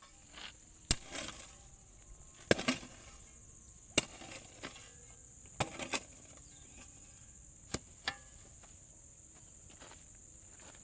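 About eight sharp knocks at irregular intervals, some in quick pairs, each followed by a brief rustle, over a steady high-pitched insect drone.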